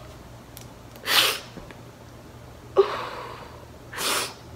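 A woman crying without words: three sharp, breathy sobbing breaths, the middle one starting suddenly and trailing off.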